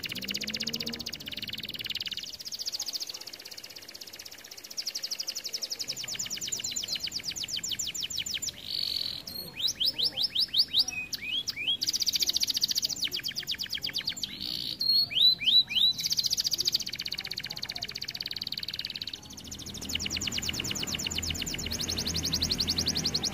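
Red-variant domestic canary singing a long song of rapid trills and rolls, broken by a few short pauses, with quick falling whistled notes in the middle.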